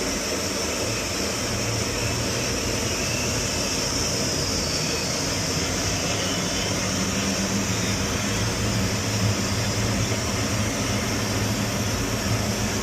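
Power Flame gas burner on a commercial boiler firing steadily: a continuous even roar of flame and combustion-air blower with a high hiss, running normally after a successful light-off.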